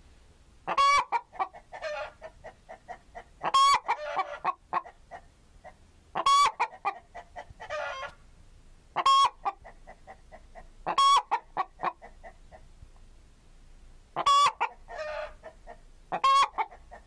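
Domestic chickens clucking: quick, quieter clucks with a loud, sharp call every two to three seconds.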